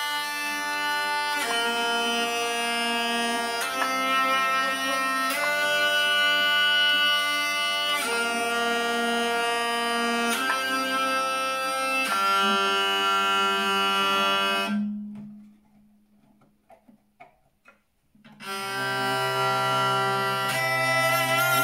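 Handmade six-string hurdy-gurdy of maple and linden wood, its wheel cranked to play a melody on the keyed strings over steady drones that give it a bagpipe-like buzz. About three-quarters of the way through, it stops for roughly three and a half seconds, then starts again with a deeper drone sounding underneath.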